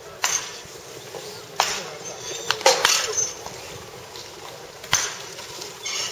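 Several sharp cracks of a wooden bat hitting baseballs in batting practice, one to two seconds apart.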